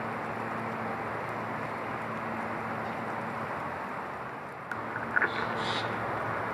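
Steady rushing background noise, with a few clicks and a short harsh bird call about five seconds in.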